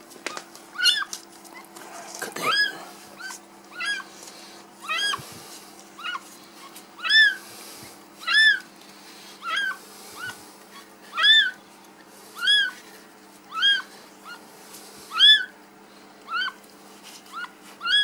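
A newborn kitten mewing over and over: short, high, arching cries, about one a second.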